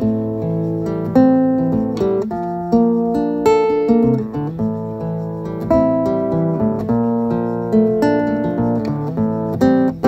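Acoustic guitar strumming a steady rhythm under a picked melody on a small mandolin-type instrument: the instrumental intro of a folk song, before the vocals come in.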